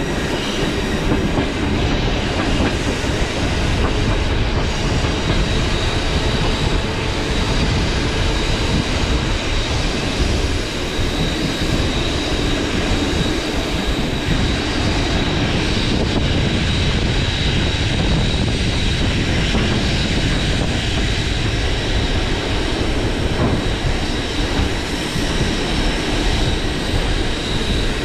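DC electric suburban train running along the line, heard from a passenger window: a steady rumble and rush of wheels on rails, with a faint, steady high whine.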